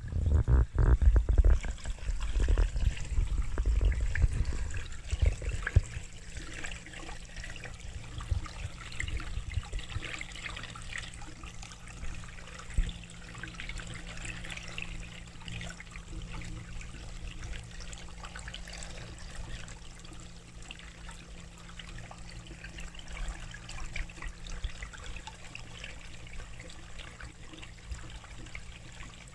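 Water trickling steadily into a koi pond, over a low hum. Loud knocks and rumbles from the phone being handled fill the first few seconds.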